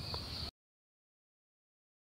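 Faint background hiss that cuts off abruptly about half a second in, followed by dead silence: the sound track drops out.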